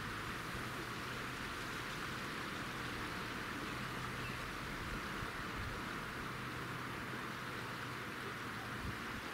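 Steady, even background hiss with a faint low hum underneath, unchanging throughout.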